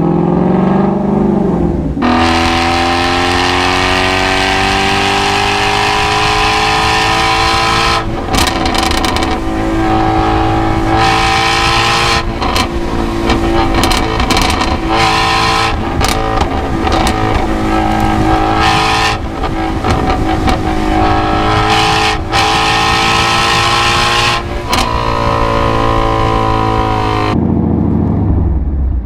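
2017 Shelby GT350's 5.2-litre flat-plane-crank V8 run hard at high revs. The pitch climbs, jumps suddenly about two seconds in, then is held high and rises slowly. Through the middle it is broken by a rapid run of sharp cracks and brief cutouts, and near the end it climbs once more before falling away.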